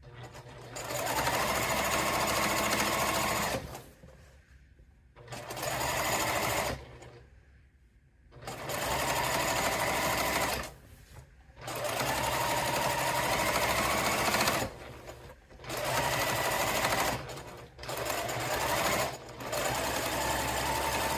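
Straight-stitch sewing machine stitching a narrow rolled hem through a rolled hem foot. It runs in about seven spurts of one to three seconds each, stopping briefly between them as the fabric is guided.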